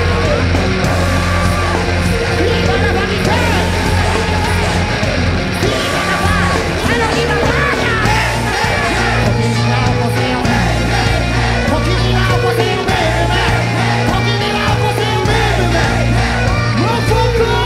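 A rock band playing live: loud music with electric guitar, bass and drums, and voices singing and yelling over it.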